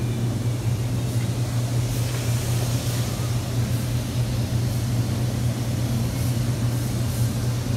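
Paint booth ventilation running with a steady low hum. A spray gun hisses in short spurts over it, loudest about two to three seconds in, as primer is sprayed onto truck parts.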